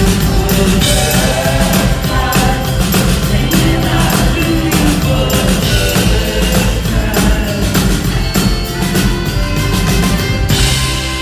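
A live rock band playing with a full drum kit and some singing, recorded from the audience in a theatre. There is a burst of crashing noise near the end.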